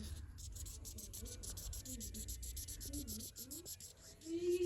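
Felt-tip marker scribbling on a coloring book page in rapid back-and-forth strokes. A voice hums one held note near the end.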